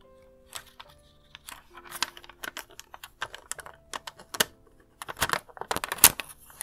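Fingertips tapping and pressing on a tempered-glass screen protector and its plastic installation frame as it is smoothed onto a phone: a run of quick, irregular clicks and taps that grow denser and louder near the end. Soft background music plays underneath.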